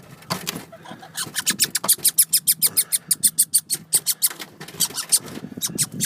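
Young red squirrel chattering: a fast, rattling series of sharp high-pitched chirps, about seven a second, starting about a second in and pausing briefly near the end.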